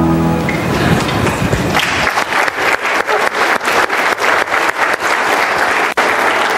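Audience applauding, many hands clapping at once; the clapping takes over as a music track ends about half a second in and is at full strength from about a second and a half in.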